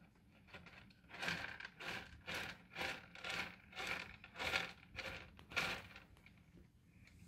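Kitten scratching with its paws in a litter box of coarse white pellet litter: a run of about ten quick rasping scrapes, roughly two a second, stopping about a second before the end, as it covers its droppings.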